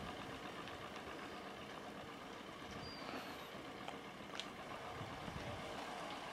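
Quiet outdoor background noise, a faint steady hum, with a brief high falling chirp about three seconds in and a small click a little later.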